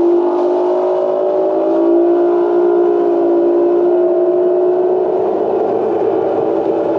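Bass boat outboard motor running hard under throttle, its pitch climbing slightly over the first couple of seconds and then holding steady as the boat gets up on plane, over a steady rush of wind and water.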